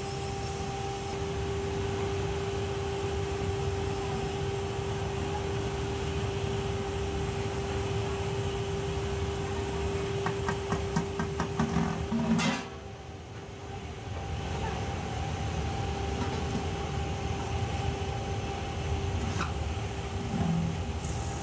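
Lathe running steadily with a constant hum as an aluminium pot is turned on it. A few short metal knocks come around ten to twelve seconds in, then the machine noise drops sharply for a moment before it picks up again.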